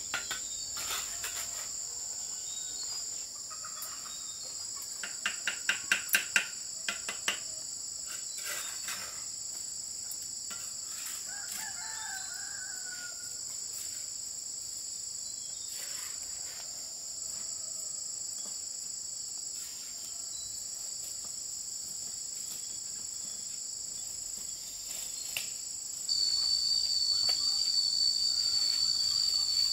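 Steady shrill chorus of insects, with a quick run of sharp taps of a trowel on brick as bricks are laid in mortar. A rooster crows faintly about twelve seconds in. Near the end a second, louder and higher insect tone joins.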